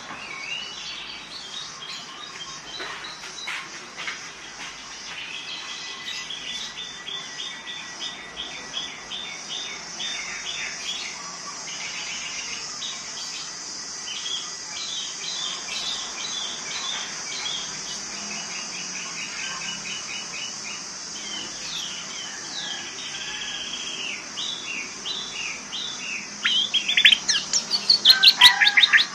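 Orange-headed thrush singing: runs of quick repeated chirping notes, building near the end to a loud burst of rapid notes that sweep downward.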